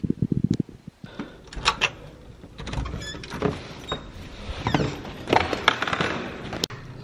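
Irregular knocks, clicks and rustles of someone walking across a hardwood floor with the camera in hand, with a sharp click near the end.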